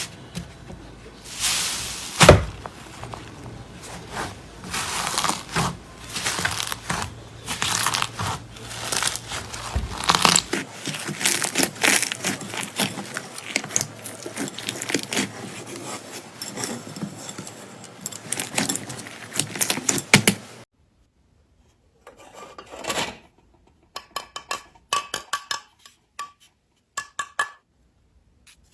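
Slime being squeezed and pressed by hand: a dense run of small crackles, pops and squelches. About two-thirds of the way through it cuts off suddenly, and what follows is sparser, quieter clicks with short silences between.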